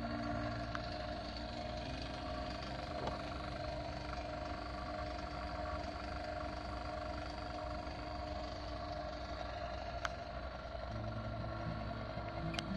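Refrigeration vacuum pump running steadily with an even hum, evacuating the split AC's refrigerant lines through the gauge manifold after the compressor swap. Two faint clicks come late on.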